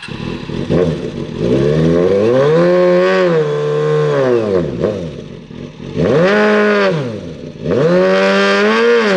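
Sportbike engine revving up, holding and dropping back three times, the first pull the longest, as the motorcycle strains against a cable to pull a car's bent frame straight.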